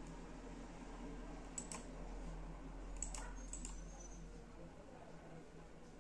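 Three short, sharp computer clicks, spread over a few seconds, with a steady low hum underneath.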